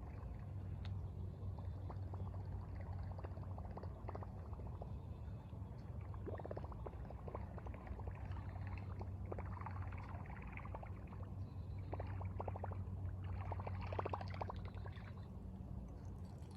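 River water trickling and gurgling in patches over a steady low hum.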